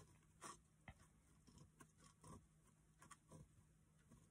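Near silence, with a few faint scattered ticks and rustles from hands turning the metal thumbscrew of a wooden embroidery hoop to tighten the tulle stretched in it.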